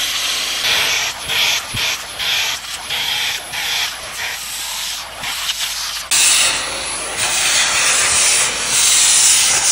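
Dyson V15 Detect cordless vacuum running with a brush attachment, a loud steady rushing hiss of motor and suction as it picks up bread crumbs from a leather sofa cushion. For the first six seconds it wavers with many short dips as the nozzle moves and catches on the leather, then it turns louder and steadier.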